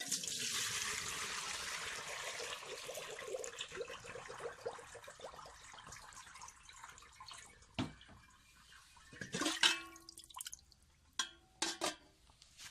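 Water poured into a cooking pot: a steady splashing pour that starts at once and thins out over about seven seconds. Several sharp knocks and clatters follow near the end.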